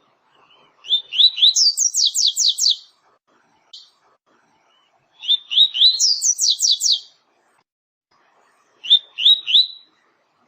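Double-collared seedeater (coleiro / papa-capim) singing its tui-tui song. Two full phrases, each a few short repeated notes followed by a quick run of higher sweeping notes, with a pause between them, and the opening notes of a third phrase near the end.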